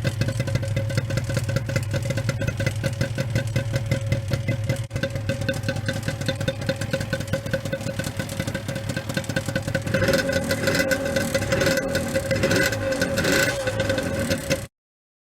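Suzuki RG250 Gamma's two-stroke parallel-twin engine idling steadily through a stock silencer, then revved in a few short blips from about ten seconds in. The sound cuts off abruptly near the end.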